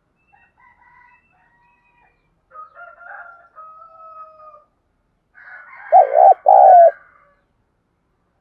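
Caged spotted dove's territorial coo: one loud two-note call near the end. Fainter drawn-out calls come earlier, about a second and three seconds in.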